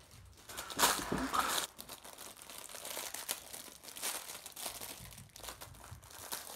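Packaging being cut open with a knife and pulled apart, crinkling and tearing, with a louder rustle about a second in.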